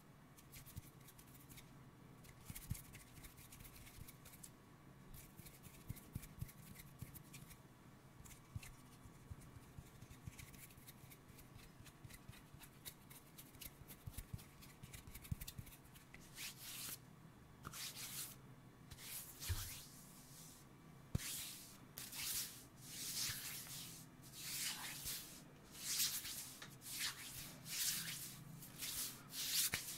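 Hands rubbing close to the microphones. First, faint finger rubs and small clicks. From about halfway, palms slide against each other in repeated swishes, roughly one a second, growing louder toward the end.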